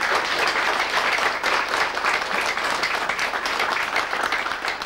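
A group of people applauding, a dense, steady patter of many hands clapping.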